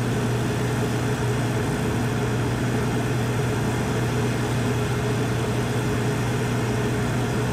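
Cummins QuietConnect 40 kW standby generator fitted with a Level 2 sound kit, running steadily at 100% load: an even engine hum with a strong low tone.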